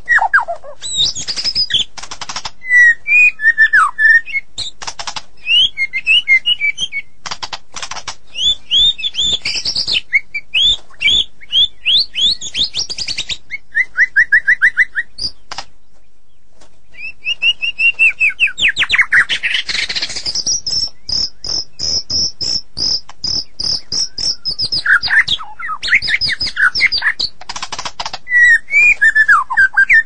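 White-rumped shama (murai batu) singing: varied whistled phrases, gliding notes and fast trills, mixed with rapid dry clicking rattles. There is a short pause about halfway through.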